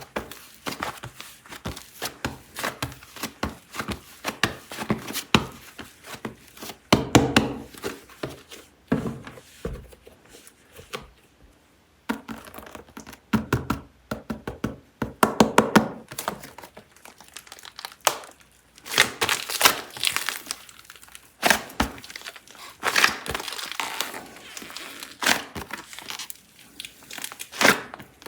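Air-dry super clay being unwrapped and handled. Packaging crinkles and tears, with many small irregular cracks and taps.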